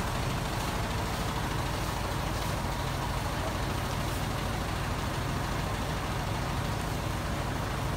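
Tour bus's diesel engine idling, a steady low rumble.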